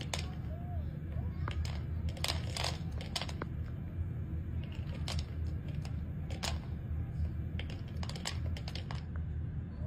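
Dry cat kibble in an automatic feeder's plastic bowl: scattered clicks, rattles and crunches as a cat eats from it, densest about two to three seconds in and again near the end, over a steady low hum.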